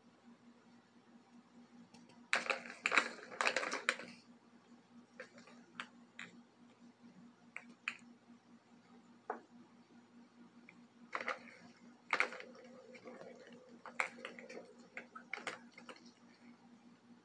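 Plastic balls clicking and rattling in the tracks of a tiered plastic track-ball cat toy as a cat bats at them. The sounds come in short bursts, busiest a couple of seconds in and again in the second half, with single clicks in between.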